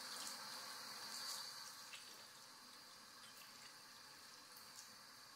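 Water running from a faucet and splashing over hands into a sink as soap lather is rinsed off. A faint, steady splashing that drops a little after about two seconds.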